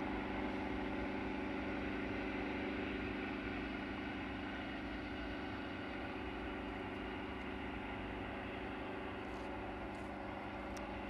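Airbus A380's four Rolls-Royce Trent 900 turbofans running at taxi power as the airliner rolls past, a steady hum with a hiss above it, fading slightly.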